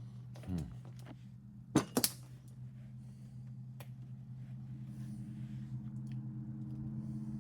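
Two sharp knocks in quick succession about two seconds in, like hard objects being handled or set down. Under them runs a steady low hum that slowly grows louder.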